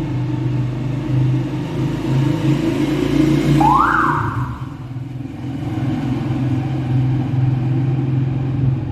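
A motor running steadily with a low hum. A short whine rises sharply in pitch about three and a half seconds in and holds briefly before fading.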